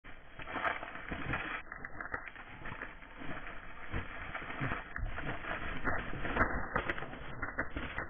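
Wood pigeons scuffling on a feeding table: a run of irregular taps and knocks from beaks pecking at seed and wings slapping.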